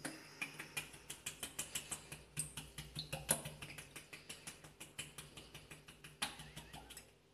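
Plastic ketchup squeeze bottle being squeezed and tapped to force the ketchup out: a rapid run of crackling clicks, several a second, with a few louder knocks.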